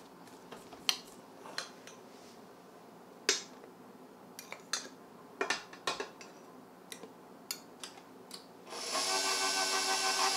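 Scattered clicks and knocks of a spatula scraping against a stainless steel stand mixer bowl. About nine seconds in, the stand mixer's motor starts and runs with a steady whine as it beats buttercream icing.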